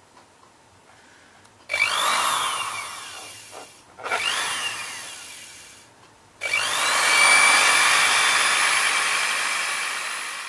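Small electric sewing-machine motor with a brass pulley, switched on three times with nothing attached. Each time it whirs up to speed with a rising whine and slowly winds down, and the third run is the longest.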